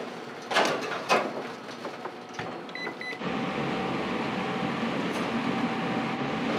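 A few metal knocks as a bread tin goes into a Rinnai convection oven, then two short beeps from the oven's control panel as it is set. About three seconds in, the oven starts running with a steady fan whir and a faint hum.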